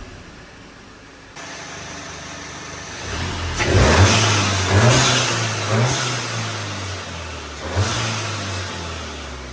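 Turbocharged car engine idling, then revved about four times from about three and a half seconds in, each rev rising and falling with a rushing sound, the first two the loudest.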